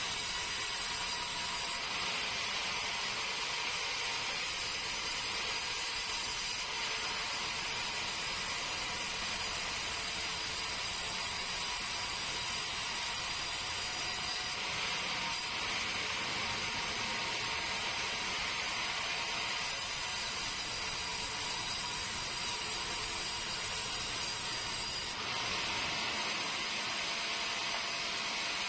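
Sawmill saw running steadily with a constant whine, cutting keruing hardwood; the hiss of the cut grows stronger three times as the blade bites through the log.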